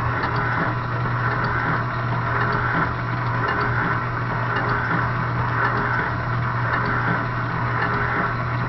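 The 1950 Chicago Coin Band Box's motor-driven animation mechanism running with no music, a steady hum under a whirring mechanical noise.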